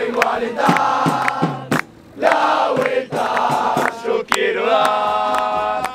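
Music with a group of voices singing long held notes in chorus, broken by short gaps.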